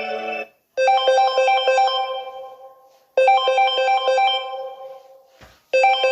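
Samsung Galaxy phone ringtone: a short melody of struck, chime-like notes that rings out and fades, playing twice and starting a third time near the end. A different ringtone cuts off just before it begins.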